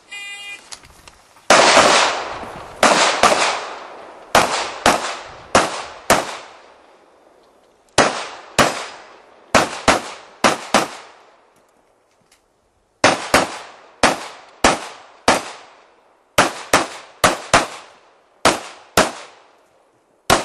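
An electronic shot-timer start beep, then about two dozen handgun shots fired mostly in quick pairs (double taps). There are short pauses between strings, typical of the shooter moving or reloading during a practical shooting stage.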